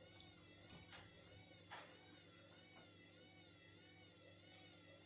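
Faint steady hum of a Candy washing machine running mid-cycle, with a high whine that wavers up and down in pitch about twice a second and a couple of light knocks.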